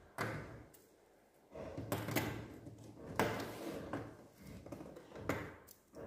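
Handling noise: small plastic light-up toy rings picked up and set down on a wooden tabletop, giving a few irregular knocks and scrapes.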